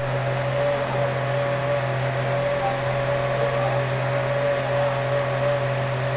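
Large engine lathe running steadily with its boring bar in the bore of a copper-alloy workpiece, making an even machine hum with a constant whine over it.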